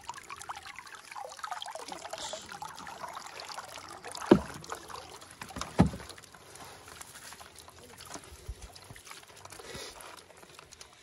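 Water dripping and trickling off a wet net full of lake weed as it is lifted and shaken out into a wooden boat, with the weed rustling. Two sharp thumps about four and six seconds in.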